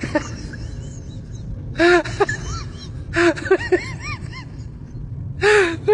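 A person's voice in three short, loud, emphatic bursts with pauses between, over a steady low room hum.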